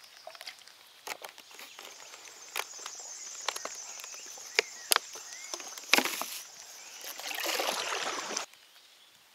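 Large raindrops pattering, with many sharp scattered ticks over a steady hiss, and a louder rush of splashing near the end that cuts off suddenly.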